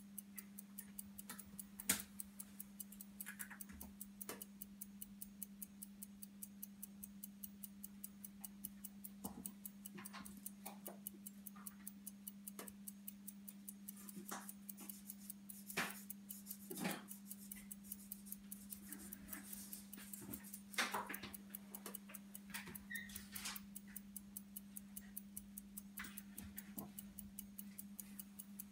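Patek Philippe pocket-watch movement fitted with a Daniels co-axial escapement, ticking in a fast, even rhythm. A steady low hum runs underneath, and a few louder knocks stand out.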